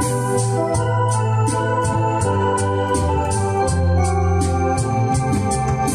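Electronic home console organ playing a slow melody over held chords and deep bass notes, with a steady percussion beat ticking in the highs.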